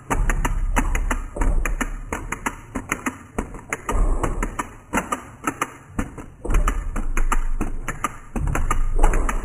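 Wind-up walking toy clattering across a wooden floor: its clockwork and plastic feet make rapid, uneven ticking and tapping, many strokes a second, rising and falling in surges.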